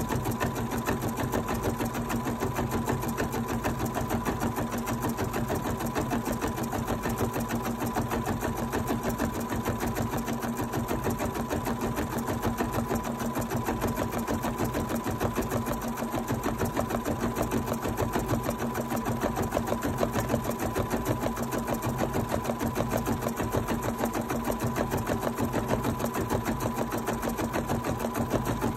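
Bernina 790 sewing and embroidery machine stitching out an embroidery design in the hoop, its needle running fast and steady.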